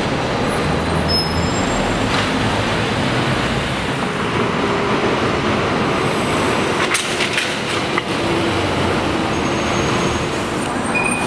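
Trolleybus passing in street traffic, with a low rumble over the first few seconds. About seven seconds in comes a quick run of sharp clicks as the trolley poles' shoes pass through an overhead wire crossing.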